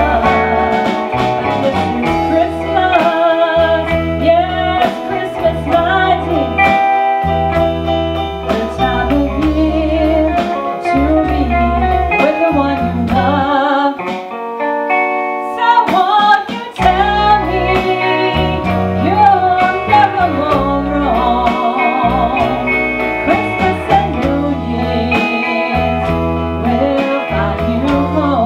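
A live band playing a song: electric guitar, bass guitar and drum kit, with a woman singing lead. About halfway through, the bass and drums stop for a couple of seconds, leaving held chords, then the full band comes back in.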